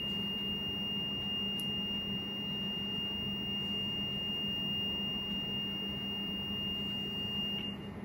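Garland MWE3 grill's reed-switch beeper sounding one continuous high-pitched tone that cuts off suddenly near the end, as the adjuster is wound anti-clockwise: the reed switch has just stopped sensing the platen.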